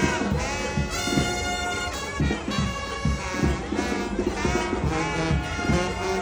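Second-line brass band playing: horns over a sousaphone bass line with a steady beat.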